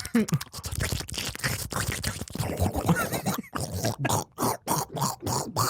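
A man making comic vocal sound effects with his mouth: grunts and scratchy, clicking noises. In the second half they turn into a run of short, rhythmic bursts, about five a second.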